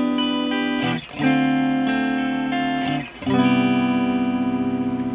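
Fender Japan ST54-95LS Stratocaster-style electric guitar on its rear (bridge) pickup, played through an amp: strummed chords, with a new chord struck about a second in and again about three seconds in, the last left ringing.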